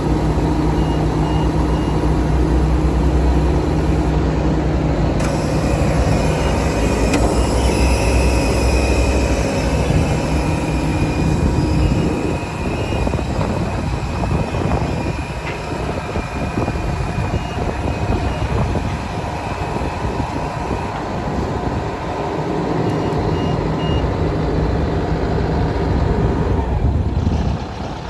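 BOMAG asphalt paver's diesel engine running steadily, its note dropping and getting rougher about twelve seconds in, with short high warning beeps now and then.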